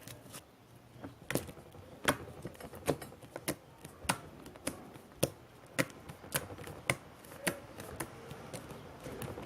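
Homemade slime being stretched and worked by hand, making small sharp clicks and pops, about two a second.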